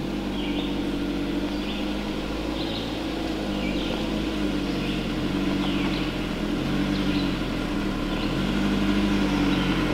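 Jeep Cherokee Trailhawk engine running at low revs as the vehicle crawls over a rutted dirt trail, growing a little louder as it approaches. Short high bird chirps come about once a second behind it.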